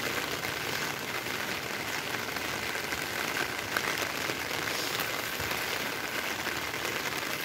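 Heavy rain falling steadily on a wet road, an even hiss that does not let up.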